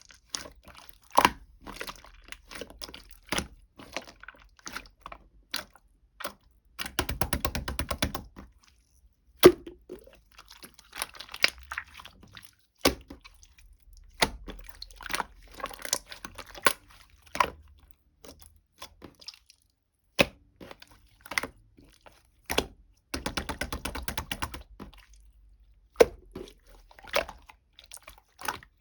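Irregular crisp crackles and clicks of something being crinkled or crunched, with two short runs of rapid rattling clicks, about seven seconds and about twenty-three seconds in.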